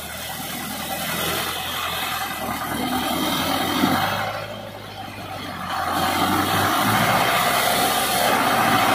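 HMT tractor's diesel engine running at low speed as it pulls a heavily loaded sugarcane trailer. The engine sound dips about halfway through, then comes back louder for the rest.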